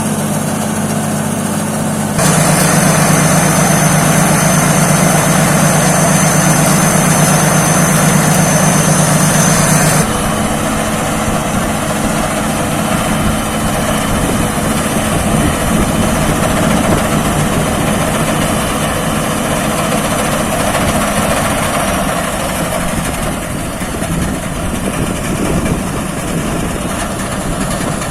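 Rice combine harvester engine running steadily. It gets louder about two seconds in, with a thin high whine, then drops back and changes character about ten seconds in.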